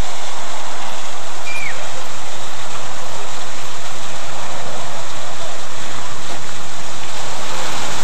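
Water falling steadily down a fiberglass three-cascade waterfall and splashing into its pool, a loud, even rush. A brief high chirp sounds about one and a half seconds in.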